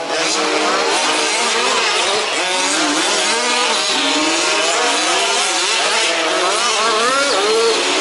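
Several 1/5th-scale RC off-road trucks racing, their small petrol two-stroke engines revving up and down over one another in constantly rising and falling pitches.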